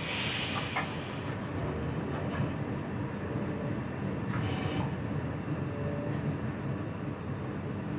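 Passenger train running along the track: a steady low rumble of wheels and running gear, with a short hiss near the start and again about halfway through.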